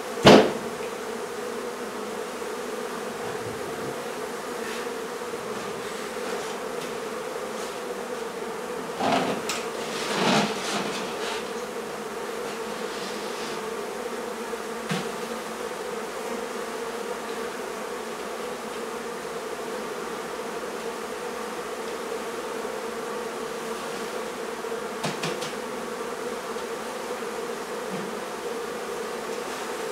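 A large colony of honey bees buzzing in a steady, dense drone. A sharp knock sounds just after the start, with a few softer thumps about nine to eleven seconds in and once more near the end.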